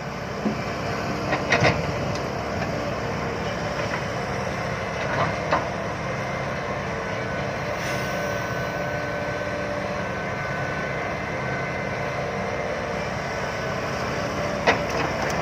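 Diesel engine of a six-wheel dump truck running steadily, with a few short knocks and clatters, about one near the start, one in the middle and one near the end.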